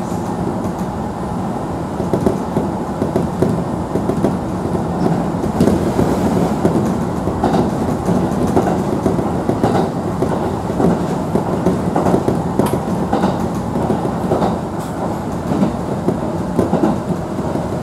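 Kintetsu local electric train running, heard from inside the passenger car: a steady rumble of wheels on rail with irregular clacks over rail joints.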